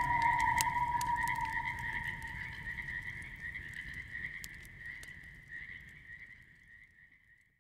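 The closing fade of an ambient audio track: a steady chirring chorus, a long high held tone that soon fades, and scattered sharp clicks, all dying away to silence near the end.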